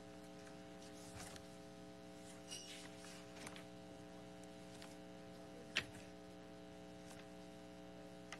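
Quiet room tone with a steady electrical hum, a few faint rustles and ticks, and one sharp click about six seconds in.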